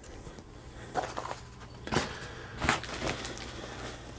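Handling noises: a few short knocks and rustles as gear is moved about on the floor, the loudest about two seconds in, over a faint steady low hum.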